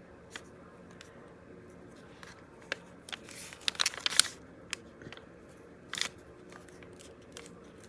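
Paper pages and fabric tabs being handled and pressed flat by hand on a sheet of kraft paper: scattered light clicks and taps, with a short spell of crinkling and rustling about three seconds in.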